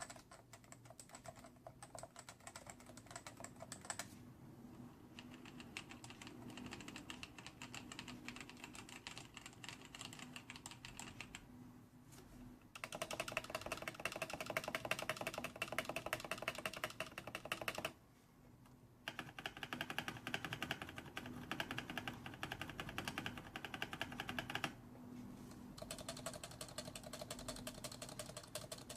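Rapid typing on a computer keyboard during a key-switch sound test: dense runs of keystroke clicks in several stretches, with short pauses about twelve, eighteen and twenty-five seconds in.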